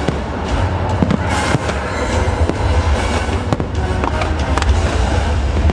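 Fireworks going off in a rapid, irregular string of sharp bangs and crackles, over loud show soundtrack music and a deep rumble.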